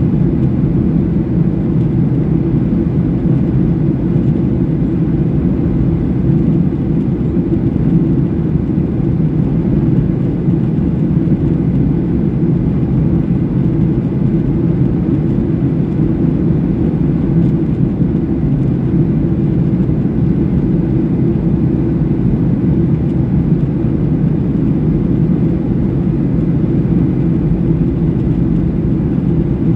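Steady cabin noise of a Boeing 737-700 airliner: an even, low roar of the jet engines and rushing air heard from inside the cabin, with no change in pitch or level.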